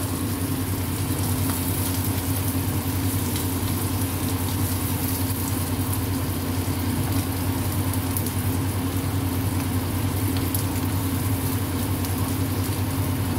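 Hot oil sizzling steadily as whole dried salted fish (tuyo) fry in a pan, with a steady low hum underneath.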